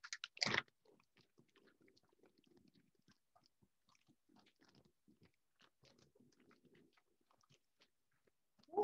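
Faint, scattered crinkling and crackling of cellophane wrap being handled, with a louder crackle about half a second in.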